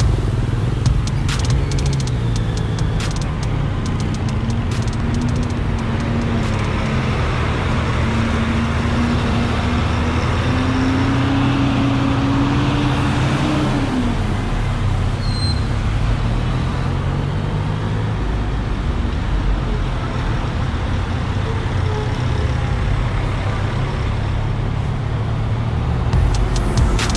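Yamaha MT-09's inline-three engine running in slow, stop-and-go traffic. Its pitch climbs gradually for several seconds midway, then drops back, over a steady wash of surrounding traffic noise.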